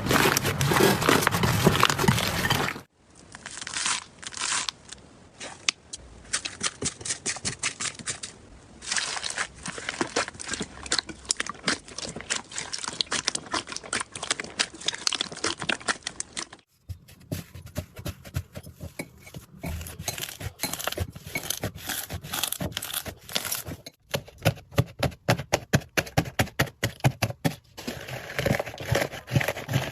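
Slime being squished and poked by hand, giving a dense run of close-up crackles, pops and clicks, in several short clips joined by abrupt cuts.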